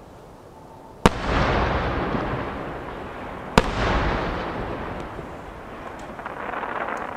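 Two large 12-inch (size 10) aerial firework shells bursting about two and a half seconds apart. Each is a sharp bang followed by a long rolling rumble that slowly fades.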